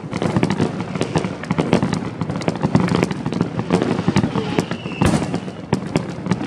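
Many fireworks going off at once: a dense, continuous crackle of bangs and pops, with sharp reports coming several times a second.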